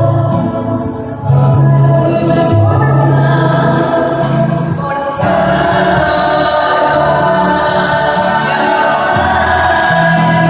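Choir singing a Christmas carol in parts, with held low notes from an electronic keyboard underneath. The singing dips briefly about a second in and again about five seconds in before going on.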